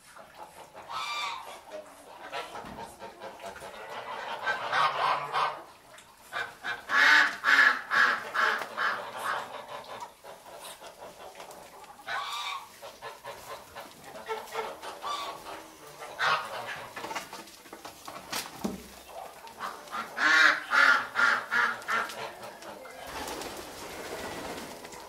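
A flock of greylag geese honking in several bouts of rapid calls, the loudest about seven seconds in and again about twenty seconds in.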